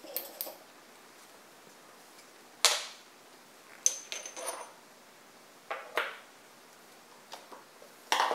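Steel parts of a Borg-Warner T56 transmission clicking and clinking as a snap ring is taken off the mainshaft with snap ring pliers and the gear is handled. There is one sharp loud click about two and a half seconds in, then a clink with a brief high metallic ring, and more scattered clinks around six seconds and near the end.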